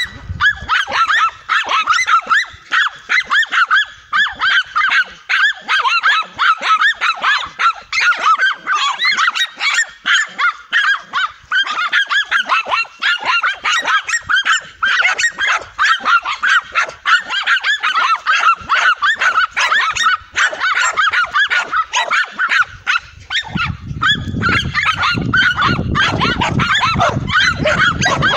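Several dogs barking frantically and without pause, fast overlapping barks. A low rumble joins about three-quarters of the way through.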